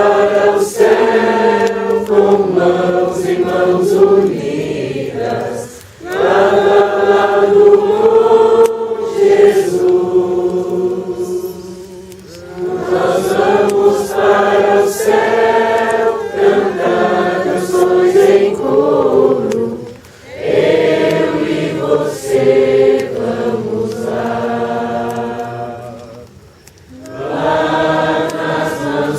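A group of voices singing a Portuguese worship song together, in long sung phrases of several seconds with brief breaths between them.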